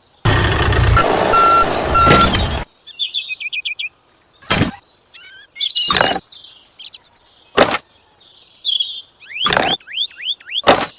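Small birds chirping and tweeting in quick repeated figures, with five sharp knocks spread out every second or two. A loud rushing noise fills the first two seconds and cuts off abruptly.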